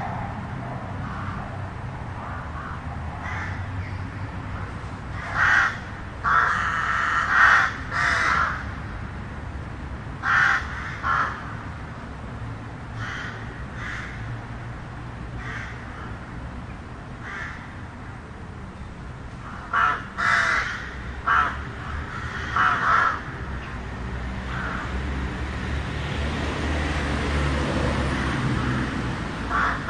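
Crows cawing in bursts of several calls, with pauses of a few seconds between groups, over a low steady rumble of town traffic. Near the end a vehicle passes with a swelling hiss.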